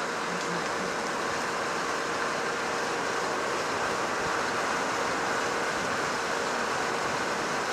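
Steady road and wind noise from a vehicle moving along a paved road, with a faint steady hum under it.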